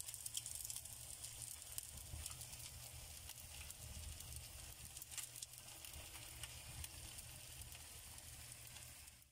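Kolduny, potato pancakes stuffed with minced meat, frying in vegetable oil in a frying pan: a steady sizzle with many small crackles and pops.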